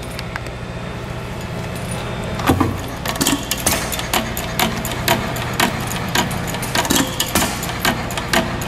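Half-scale 1½ hp New Holland hit-and-miss gas engine running, a steady low drone with frequent sharp clicks that grow busier about two and a half seconds in.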